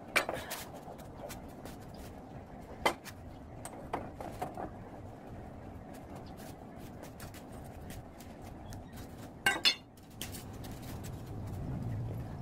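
Scattered sharp metal clinks and knocks as steel frame tubing and a small engine are handled and set down, with a double knock about nine and a half seconds in, over a steady low background hum.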